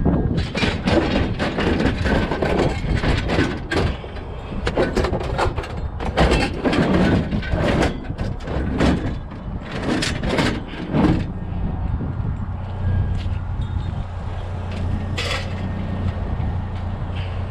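Loose scrap metal clanking and rattling in irregular knocks for about eleven seconds, then a steady low pickup-truck engine hum with one more short clank near the end.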